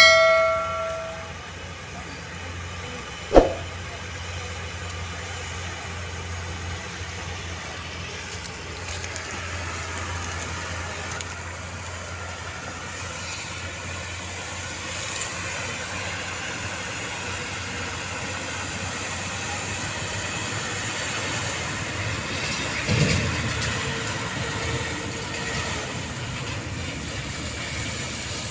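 A short chime and a click from a subscribe-button animation at the start, then the steady engine and tyre noise of loaded Hino coal-hauling road-train trucks driving along a dirt haul road, growing a little louder in the second half.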